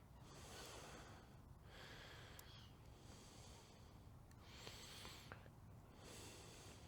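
Faint, slow breathing close to the microphone, a soft hissy breath about every second and a half, with a couple of small clicks.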